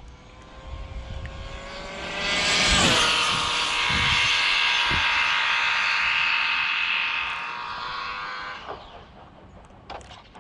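ARRMA Limitless RC speed-run car's electric motor and drivetrain whining at full throttle on a high-speed pass. The whine builds about two seconds in, holds a steady high pitch for several seconds, and cuts off about eight and a half seconds in as the throttle comes off.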